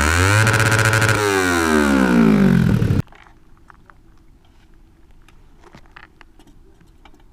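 Kawasaki Ninja 250's parallel-twin engine revving through a newly fitted muffler, with a bassy note. The revs rise, hold briefly and fall back, then the sound cuts off suddenly about three seconds in. A faint hum and a few small clicks follow.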